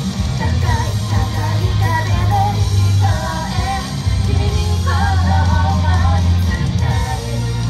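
Female idol group singing a J-pop song live over loud pop music with a strong, steady bass.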